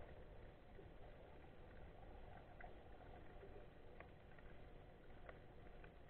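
Near silence: faint steady underwater noise, with a few scattered soft clicks.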